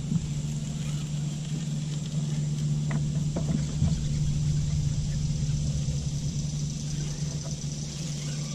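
A small boat motor running with a steady low hum, and a few faint knocks about three to four seconds in.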